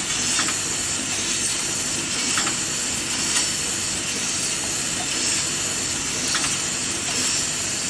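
Lollipop packaging machine running: a steady, dense hissing mechanical noise, with a few faint short clicks now and then.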